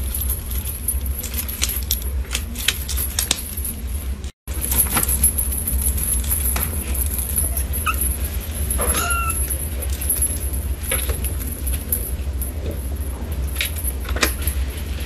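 A kitten mews briefly about nine seconds in, over a steady low hum and scattered light clicks and rattles.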